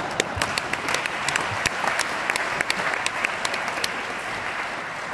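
Audience applauding, with many separate sharp claps standing out; the applause thins and fades near the end.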